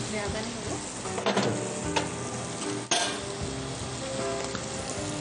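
Vegetables sizzling as they fry with spices in a non-stick pan while a spoon stirs them. A few sharp taps of the spoon come about one, two and three seconds in.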